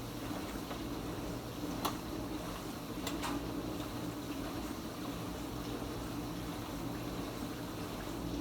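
Kenmore Ultra Wash 3 dishwasher running its quick rinse cycle: a steady pump hum under the rush of water spraying and splashing inside the tub. A sharp tick comes about two seconds in, and two more about a second later.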